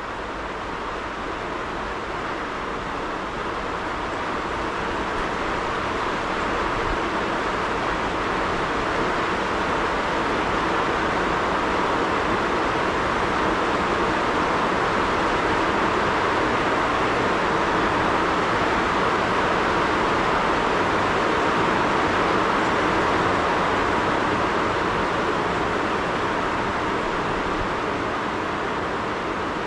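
Mercedes-Benz car driving: steady road and wind noise that grows louder over the first several seconds, holds, then eases a little near the end.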